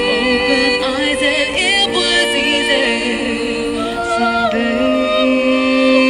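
A woman singing live into a microphone, holding long notes with quick wavering ornamental turns.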